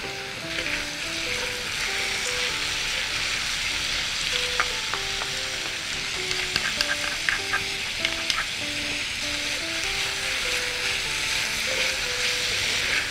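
Sliced Korean zucchini sizzling as it is stir-fried in oil in a wok, turned with wooden spatulas that click against the pan, the clicks busiest in the middle stretch. A soft background melody plays underneath.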